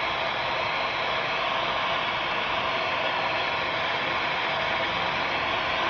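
Hot-air blower running steadily, shrinking heat-shrink tubing over a wire connector.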